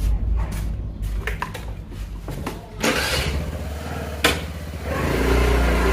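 Motor vehicle engine running with a steady low rumble, joined about three seconds in by a louder rush of noise, with a sharp knock a little past four seconds.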